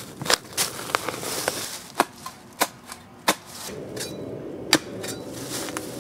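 A narrow steel spade chopping into hard soil to dig a post hole: irregular sharp chops and scrapes of the blade in the dirt, with dry leaves crunching underfoot.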